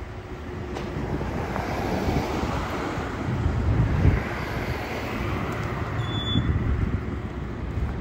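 Street traffic going by, louder about halfway through as a school bus passes, with wind rumbling on the microphone.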